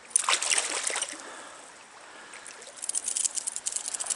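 A hooked trout splashing at the surface of a stream: a sharp burst of splashing about a quarter second in, then a run of quick, crackly splashes near the end, over the stream's running water.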